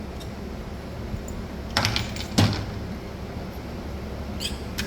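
A few sharp knocks and clinks of metal tools and engine parts handled during a dirt-bike engine teardown, the loudest clunk about two and a half seconds in, with more small clicks near the end.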